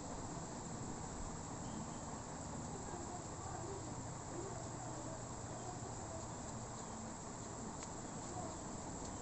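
Steady high-pitched chorus of crickets in the background.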